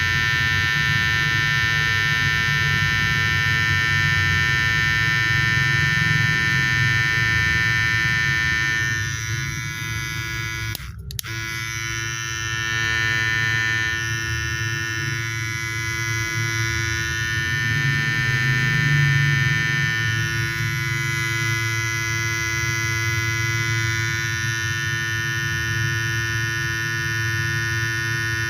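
Electric hair clipper (a detailer trimmer) running with a steady buzz. A brief click and a short dip about eleven seconds in, after which it carries on buzzing.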